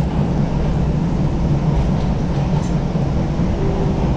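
Steady low rumble of an MBTA Orange Line subway train running, heard from inside the car, with a faint whine near the end.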